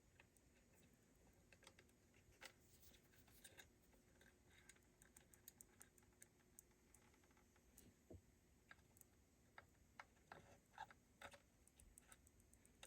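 Near silence with faint, irregular small clicks and taps: a wire and small hand tools being worked onto a solder lug.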